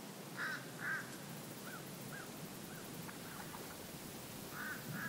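Greater flamingos calling with short, arched honks: two louder calls in the first second, a few fainter ones through the middle, and two more near the end, over a steady background hiss.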